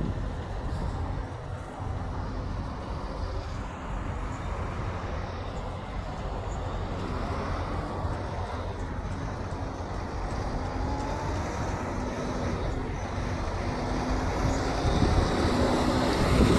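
Road traffic: the low, steady rumble of vehicle engines, with an engine hum coming in about halfway and growing louder toward the end as a vehicle draws nearer.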